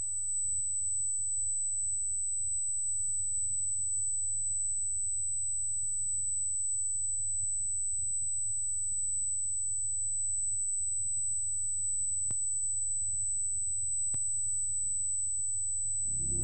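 A steady high-pitched ringing tone, the film's ringing-ears effect after gunfire, held unchanged over a low muffled rumble.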